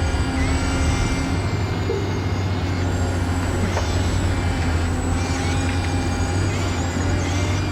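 Radio-controlled toy truck running, a steady low motor hum with whining tones that bend up and down now and then.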